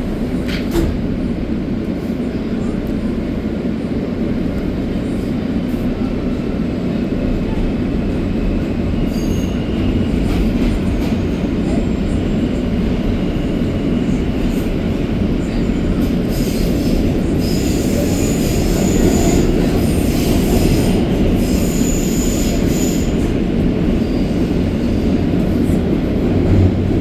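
Heard from inside an R160A subway car running at speed: a steady, loud rumble of wheels on rail and running gear. Thin high wheel squeals come and go in the second half.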